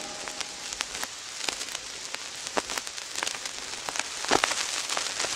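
Vinyl LP surface noise with the music gone quiet: a steady crackle of small clicks and pops over faint hiss as the stylus tracks the groove, with a few louder pops.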